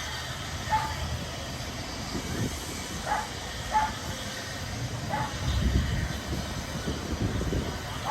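Narrow-gauge train running with a low, uneven rumble. Short high-pitched calls, often in pairs, sound every second or two over it.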